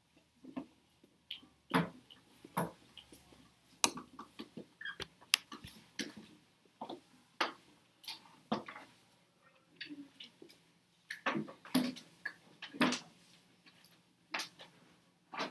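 Scattered, irregular clicks, taps and knocks from a classroom of students working quietly at their desks, over a faint low hum.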